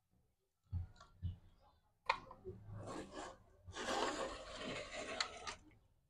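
Metal hand tools working on a generator engine's mounting bolts: scattered clicks and knocks, with a longer scraping stretch of about two seconds past the middle.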